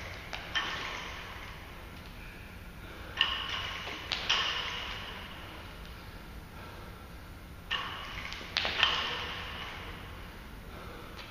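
Loaded barbell with weight plates clanking and ringing as it is lifted overhead and lowered in repeated reps. The clanks come in three groups of two or three sharp metallic clinks, about four seconds apart, each with a ringing, echoing tail.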